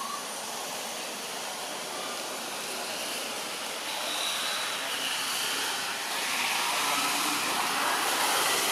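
Steady outdoor background hiss that slowly grows louder, with a few faint high whistles above it.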